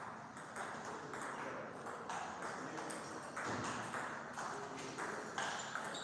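Table tennis ball clicking against bats and the table in a rally, about two hits a second.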